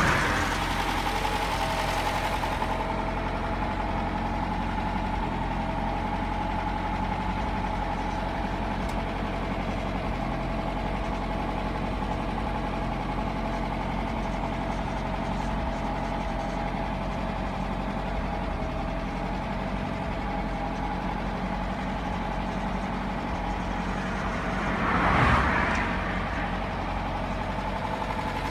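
Mercedes-Benz 190SL's 1.9-litre four-cylinder engine idling steadily. About 25 seconds in, a brief louder rush of noise rises and fades over it.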